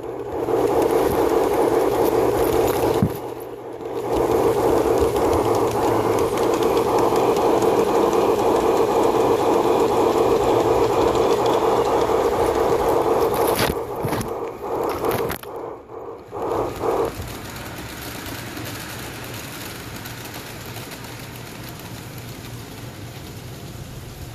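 LGB garden-scale model train running, heard from on board: a steady rolling rattle of wheels and drive on the track. It drops out briefly twice, then falls away to a quieter hiss about 17 seconds in.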